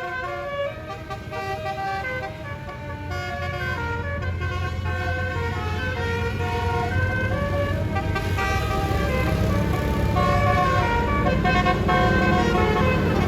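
A bus's Basuri telolet horn playing a multi-note melody, its notes stepping up and down in quick succession. Under it a deep vehicle rumble grows steadily louder as the bus comes closer.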